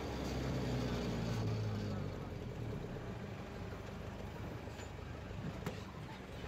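Low, steady road and engine noise of vehicles moving along a city street, heard from a moving vehicle. An engine hum is stronger for the first two seconds and then fades.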